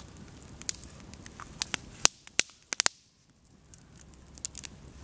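Wood campfire crackling, with scattered sharp pops; the soft background dips for about a second midway.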